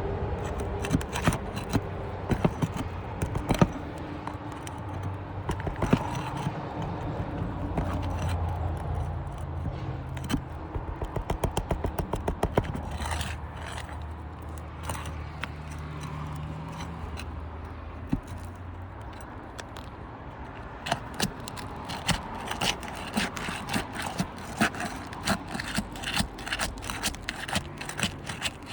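Snake tool scraping and prying under asphalt shingles to break their seal strips: a long run of short scrapes and clicks, with a fast string of clicks about ten seconds in and denser scraping over the last third.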